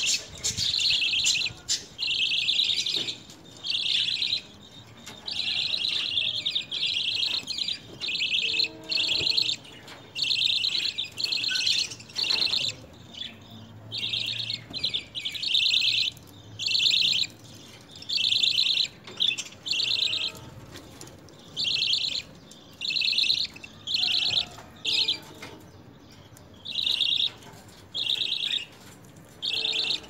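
Budgerigars chirping: a steady run of short, high, buzzy chirps, roughly one burst a second with brief gaps between.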